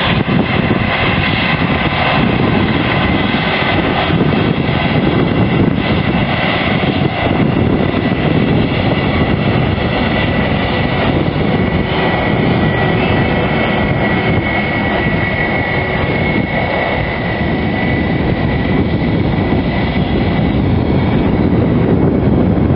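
Airbus A320 jet engines running at taxi power: a steady rumble with a high whine over it.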